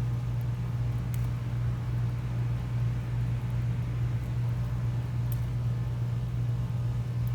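A steady low hum, like a distant engine or machine, with faint clicks about a second in and again past the middle.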